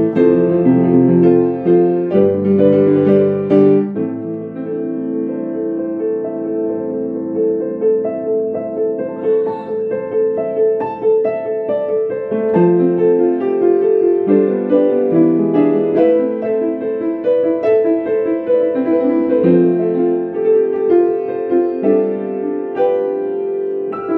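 Ambient music played live on a keyboard: slow, sustained chords with held notes that change every second or two.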